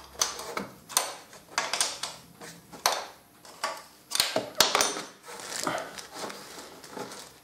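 A spanner clicking and tapping against a tight nut on a motorcycle's sump plate as it is fitted and worked: a string of irregular sharp clicks, a few each second.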